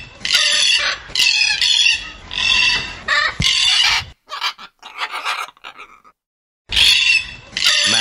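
Macaws squawking: a run of harsh calls in quick succession, thinning to faint calls and a brief silence a little past the middle, then loud again near the end.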